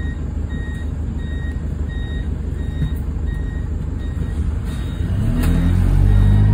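Bus door warning beeper sounding in short even beeps, about one and a half a second, over the diesel engine idling. About five seconds in the engine revs up as the bus pulls away from the stop.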